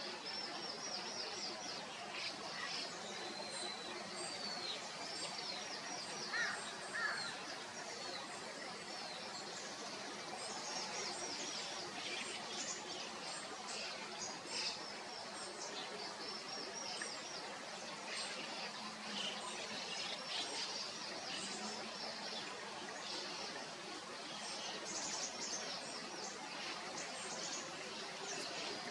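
Small birds chirping and calling throughout in quick high-pitched series, over a steady outdoor background hiss.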